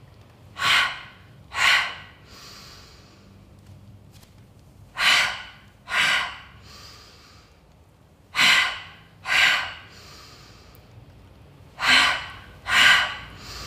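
A woman's forceful Pilates breathing: four pairs of sharp, audible breaths through the mouth and nose, the two breaths of each pair about a second apart and the pairs about three and a half seconds apart.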